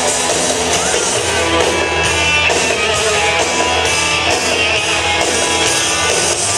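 Live rock band playing loudly, with electric guitars and drums, heard from among the audience.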